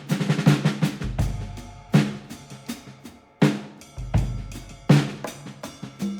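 Instrumental background music led by a drum kit: sharp snare and bass-drum hits, with a heavy accent about every second and a half over a low sustained bass.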